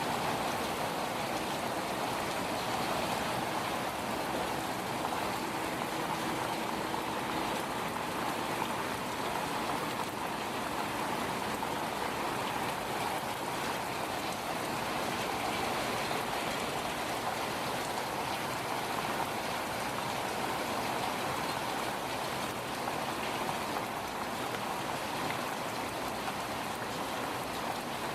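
Steady rain falling in a thunderstorm, an even, unbroken patter with no thunder.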